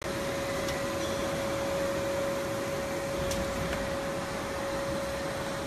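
Semi-automatic corrugated box folder-gluer running: a steady mechanical whir with a constant hum, and a couple of faint clicks.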